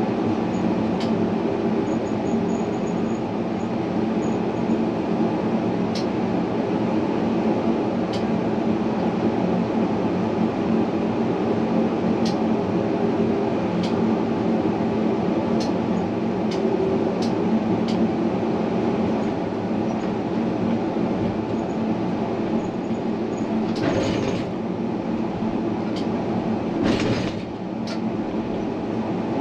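Tram running along its line: a steady rolling rumble with a low motor hum and occasional light clicks. Two brief louder rushing noises come near the end.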